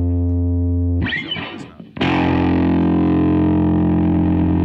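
Distorted electric guitar through a Boss DF-2 Super Feedbacker & Distortion pedal: a held note sustains steadily and cuts off about a second in, then after a brief scratchy gap a new note is struck about two seconds in and held at full sustain as the pedal's feedback tone, which comes out as a different pitch than the one intended.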